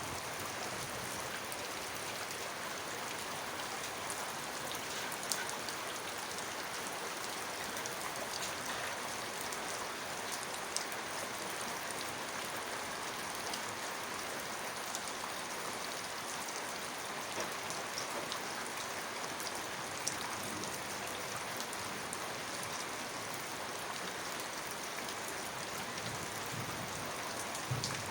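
Heavy rain falling steadily, a dense even hiss with scattered sharp ticks of single drops striking a hard surface.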